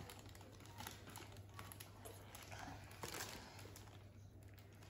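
Faint crinkling and small clicks of a clear plastic bag being picked at by hand, trying to open it.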